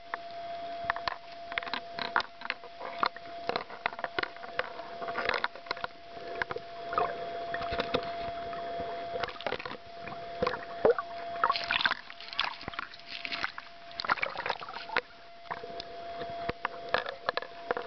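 Underwater sound picked up through a camera's waterproof housing: irregular clicks and crackles with a steady hum beneath that fades in and out.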